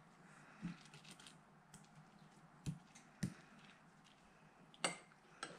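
Metal spoon spreading tomato sauce over a tortilla on a plate: faint soft scraping with a few light knocks and clicks, the sharpest near the end.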